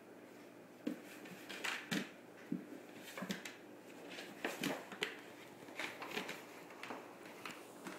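Great Dane's claws clicking and scraping on a hardwood floor as it crawls along on its belly: irregular taps and short scuffs, about a dozen in all.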